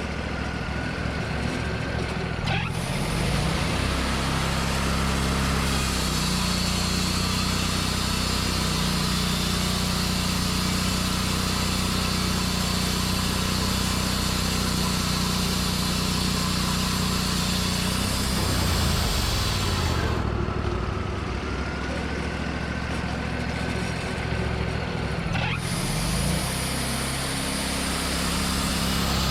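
Portable sawmill's engine running under load as the blade cuts through a white pine log, with a steady hiss of cutting over the engine hum. The cutting hiss stops for about five seconds about twenty seconds in, while the engine's pitch shifts, then starts again near the end.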